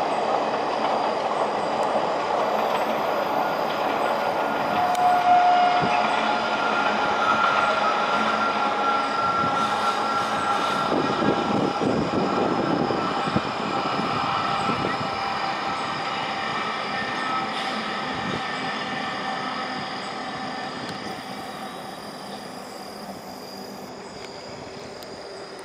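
Passenger train climbing a ghat gradient, pushed at the rear by two banker locomotives: a continuous rumble of wheels on rails with steady high tones over it. The rumble grows heavier as the banker locomotives pass about halfway through, then fades steadily as the train moves away.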